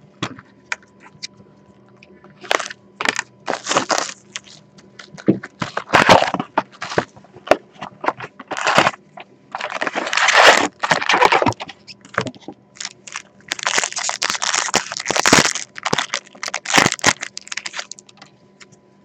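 Hockey card packs being torn open and handled: wrappers and cardboard crinkling and crackling in irregular bursts, with sharp clicks between.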